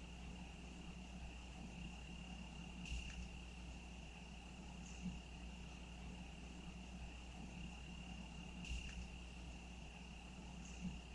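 Faint crickets trilling steadily on one high continuous note, with a few soft brief ticks spaced a few seconds apart.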